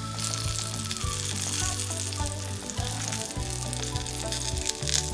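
Eggplant chunks sizzling as they fry in oil in a small black frying pan, a steady hiss of frying. Background music plays over it.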